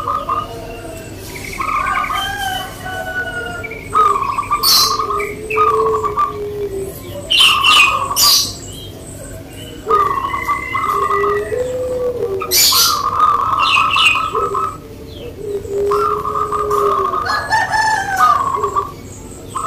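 Zebra doves (perkutut) cooing their song over and over: phrases of a fast purring trill alternating with lower drawn-out coos. Short, sharp high chirps from other small birds come in between.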